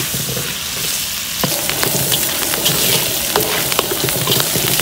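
Chicken feet and aromatics sizzling in hot oil in a large wok while being stir-fried. A metal ladle scrapes and knocks against the wok, with clicks coming more often from about a second and a half in.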